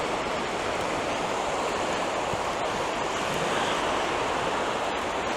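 Steady wash of sea surf breaking on the beach.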